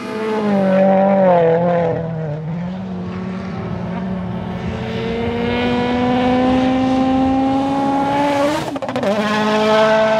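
Rally car engine at high revs on a gravel stage. The pitch wavers for the first couple of seconds, then climbs steadily as the car accelerates. Near the end it breaks off briefly and settles at a lower pitch.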